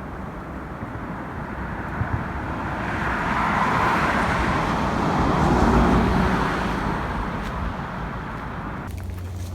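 A motor vehicle passing on a road: a rushing noise that builds slowly, peaks about six seconds in and fades away again.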